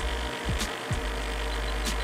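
Background music: deep sustained bass notes with kick-drum thumps and a sharp hit about every second and a quarter.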